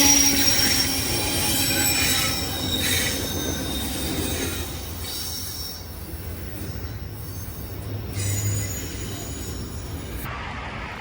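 Train wheels squealing on the rails as railroad cars roll by. Several high, steady squeals are loudest at the start and fade out over the first half, leaving a softer rolling rumble.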